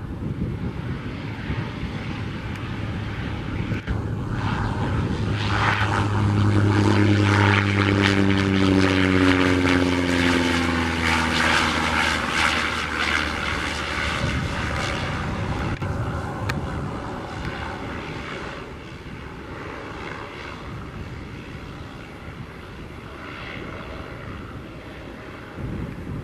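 Cessna 208 Caravan's single Pratt & Whitney PT6A turboprop and propeller passing close by as it lands. The drone grows louder, its pitch falls as the plane goes past, then it fades away.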